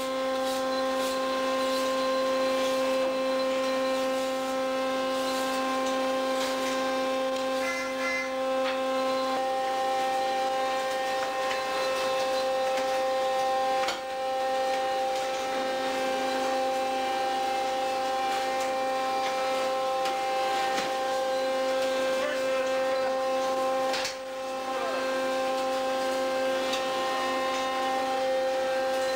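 Ship's processing-room machinery running with a steady, pitched drone, with scattered knocks and clatter from work at a stainless-steel chute. The lowest note of the hum drops out for a few seconds twice.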